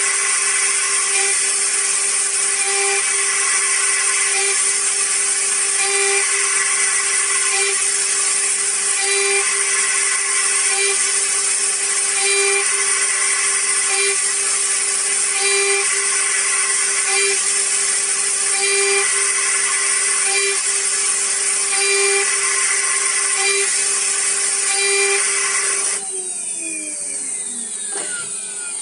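CNC engraving machine's high-speed spindle milling a brass die with a fine engraving bit: a steady hiss with a hum that swells regularly about every second and a half as the tool sweeps the work. About two seconds before the end the hiss cuts off suddenly, leaving quieter whining tones that slide up and down.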